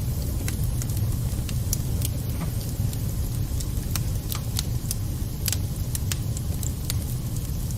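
Wood fire burning in a fireplace: a steady low rumble with irregular sharp crackles and pops from the burning wood and embers.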